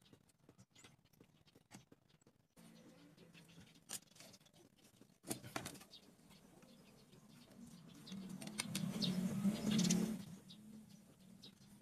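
Small taps and clicks of wooden popsicle sticks being handled on a plywood board. About eight seconds in comes a louder scraping rustle lasting a couple of seconds, as a plastic protractor is slid over the sticks.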